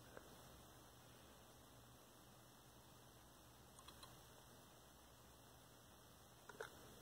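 Near silence: room tone with a steady low hum and a few faint clicks, the loudest pair near the end.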